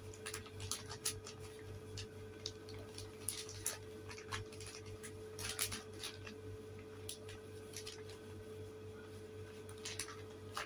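Tissue paper and plastic wrapping rustling and crinkling as they are handled and pulled apart, in scattered crackles. A steady electrical hum runs underneath.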